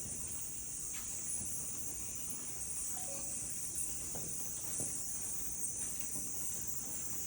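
Insects chirring steadily in a continuous high-pitched drone, with a few faint knocks in the background.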